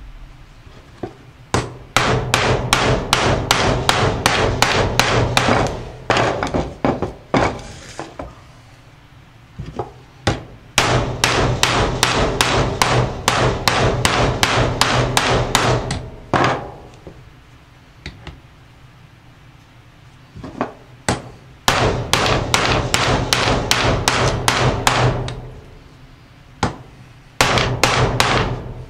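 Ball-peen hammer striking a bearing in quick runs of metal-on-metal blows, about four or five a second, with short pauses between runs. The blows drive a new wheel bearing into an ATV's aluminium rear carrier hub housing.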